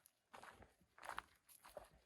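Faint, irregular footsteps, a few soft scuffing steps about half a second apart.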